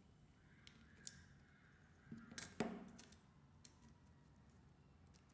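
Plastic clips of a Samsung phone's back frame clicking as the frame is pried off the circuit board: a few light clicks, then a cluster of louder snaps about two and a half seconds in.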